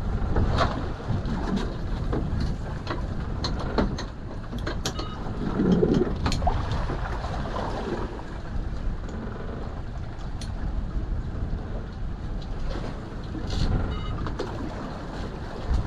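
Small motor boat's engine running steadily under wind and water noise, with scattered light clicks and knocks and a short thump about six seconds in.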